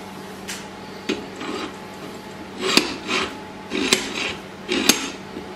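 Metal parts of a homemade angle-grinder stand being handled: a steel guide bar and wing-bolt clamp scraping and clinking against the post in a string of short bursts, with three sharper clicks in the second half.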